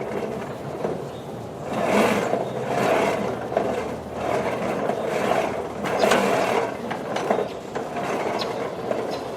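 Automatic retractable garden hose reel's internal gears and ratchet rattling in a series of bursts about a second apart as the hose is worked; the reel is failing to rewind the hose.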